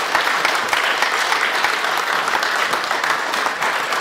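Audience applauding: many hands clapping steadily at the close of a speech.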